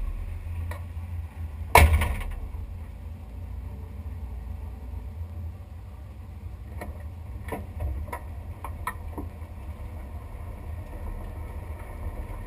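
600 cubic-inch V8 of a drag car idling with a steady low rumble, heard from inside the cockpit. A loud sharp knock comes about two seconds in, and a few lighter clicks follow later.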